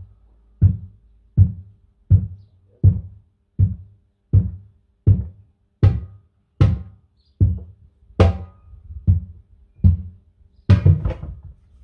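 Heavy hammer blows, evenly spaced at about one every three-quarters of a second, as a tractor rear tyre is worked down over its steel rim; two strikes come close together near the end.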